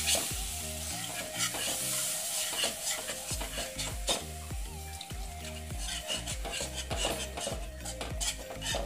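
A wire whisk beating and scraping in a nonstick pan as milk is whisked into a sizzling butter-and-flour roux, with quick repeated clicks of the whisk against the pan.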